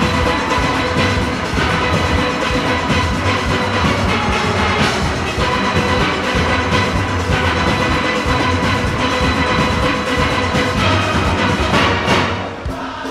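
Large steel orchestra playing at full volume: many steelpans over a driving percussion beat. A last loud stroke rings out shortly before the end and the music drops away.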